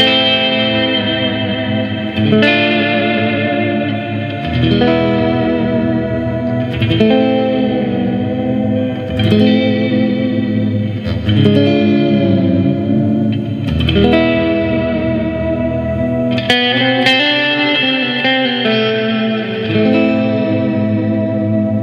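Clean-toned electric guitar with Burstbucker humbucking pickups playing slow chords, a new one struck about every two seconds. It runs through an EarthQuaker Devices Astral Destiny octave reverb pedal set to its Sub mode, so each chord rings on in a long reverb wash that blends into the next.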